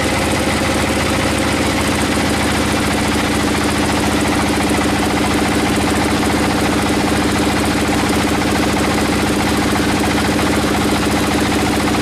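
Sawmill engine running steadily at an even pitch.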